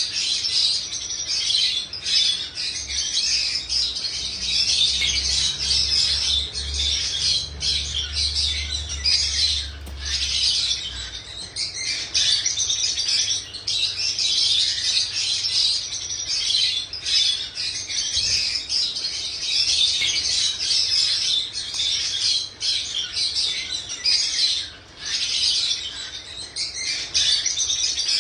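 Pet birds chirping in a dense, unbroken stream of quick high chirps, with a faint low hum underneath during the first third.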